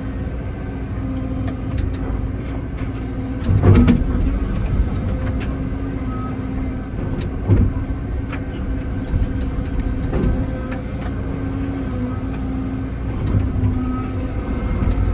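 Excavator's diesel engine running steadily under hydraulic load while digging, with a few knocks and clunks. The loudest comes about four seconds in and another about halfway through.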